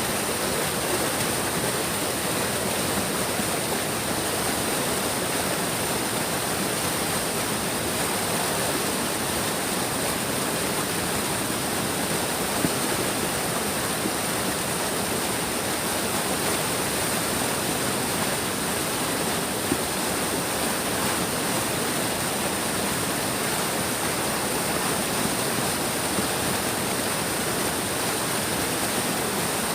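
A big stream's water flowing steadily, an even, unbroken hiss of moving water.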